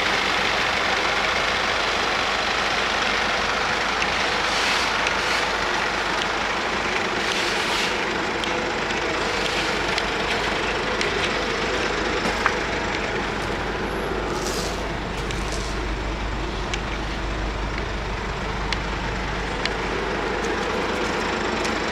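Mercedes Sprinter refrigerated van running steadily, with a few light clicks; the low hum grows stronger about two-thirds of the way through.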